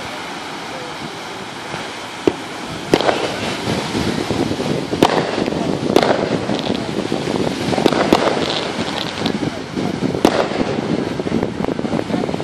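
Consumer fireworks going off. A single sharp pop comes about two seconds in, then from about three seconds a run of loud cracks every one to two seconds over a steady hiss.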